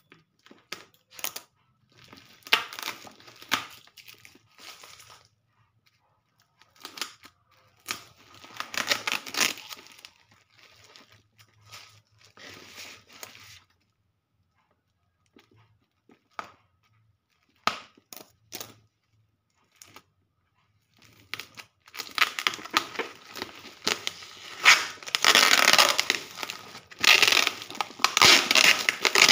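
Black plastic parcel wrapping and clear packing tape crinkling and tearing as the package is cut and pulled open. It comes in scattered short bursts at first, then turns into nearly continuous, louder crinkling and tearing over the last several seconds.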